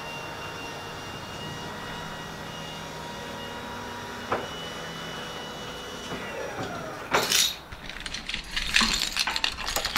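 A steady hum of several held tones that slide down in pitch about six seconds in, followed by a loud scrape and then irregular clinks and rattles of handling near the end.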